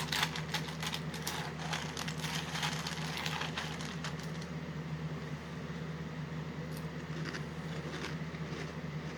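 Crunching of Trix cereal being chewed, many small crackling clicks in the first few seconds that thin out to a few near the end, over a steady low hum.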